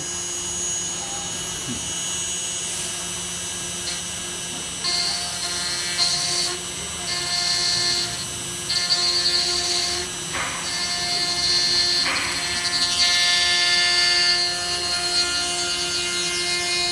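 CNC router spindle running and cutting grooves into a board, a steady machine whine. From about five seconds in, a higher whine repeatedly cuts in and out.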